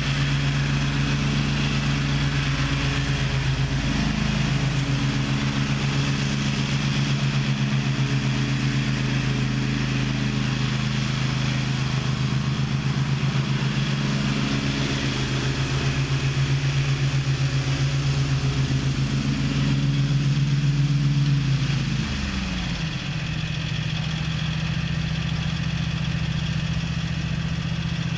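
Gravely ZTX 42 zero-turn mower's engine running steadily, dipping briefly in speed about four seconds in. A little over twenty seconds in its speed falls away, and it settles into a lower, steady run.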